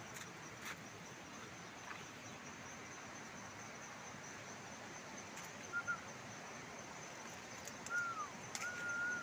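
A bird whistling over steady outdoor background hiss: a short double note a little past the middle, then a falling whistle and a held whistle near the end.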